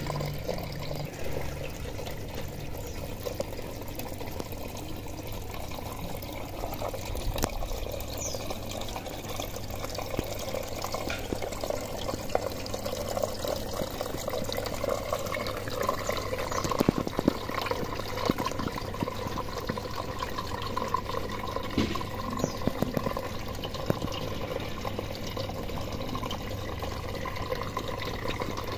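Water running and trickling steadily, a continuous flow with many small splashes.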